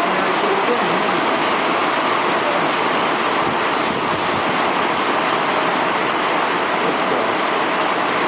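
Torrential rain pouring down in a steady, dense hiss.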